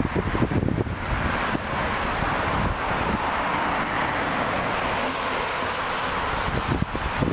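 Steady hiss of road traffic, cars passing on a multi-lane road. Wind buffets the microphone in the first second and again near the end.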